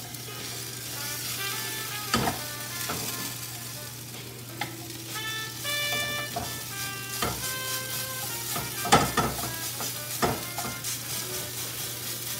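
Food frying in a pan, a steady sizzling hiss, with soft background music and a few sharp knocks, the loudest about nine seconds in.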